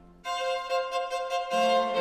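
Instrumental background music led by a violin, a new phrase coming in loudly a moment after a brief lull.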